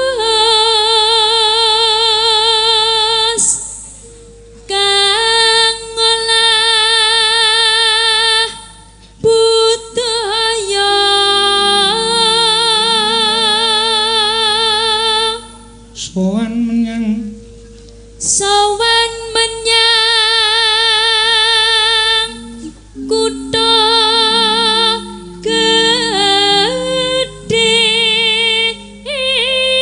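A sinden, a female Javanese gamelan singer, singing a slow solo through a microphone: long held notes with wide vibrato in phrases broken by short pauses. Quieter low accompanying notes move underneath in steps.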